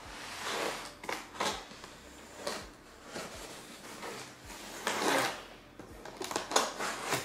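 Large cardboard TV box being opened by hand, its tape and flaps pulled and worked along the top edge: an irregular run of cardboard scrapes and rustles.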